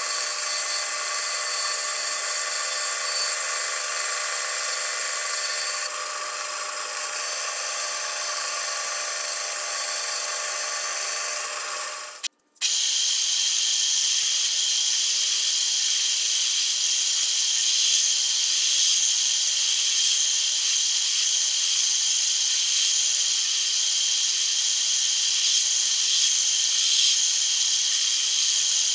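Band saw running and cutting a small wooden knife-handle block, a steady whine. About twelve seconds in it cuts off and a small bench belt sander takes over, running steadily with a bright hiss as the wooden handle is rough-shaped against the belt.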